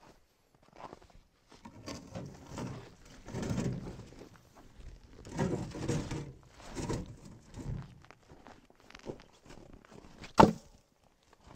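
Footsteps in snow and the handling of maple logs being lifted out of a trailer, then one sharp knock near the end as a log is dropped onto a stacked pile.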